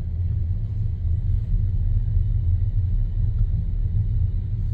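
Steady low rumble of a moving vehicle's road noise.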